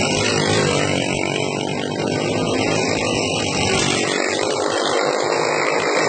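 A pack of racing karts with small single-cylinder four-stroke clone engines running at speed around a dirt oval, their engines blending into one continuous sound.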